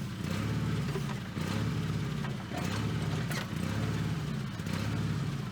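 Small backhoe's engine running, its note dipping and picking up again about once a second, with a few sharp knocks along the way.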